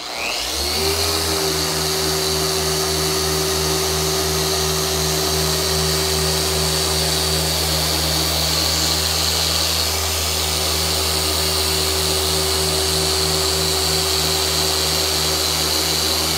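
Long-throw dual-action car polisher switched on and spinning up over the first second, then running steadily with its foam pad pressed against a painted body panel, a hum with a high whine over it.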